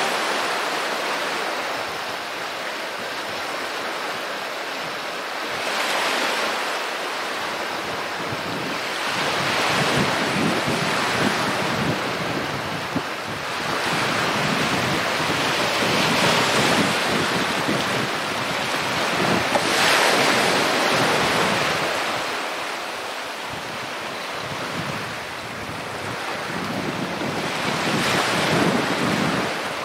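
Small sea waves breaking and washing over a rocky, pebbly shore, swelling and fading every few seconds.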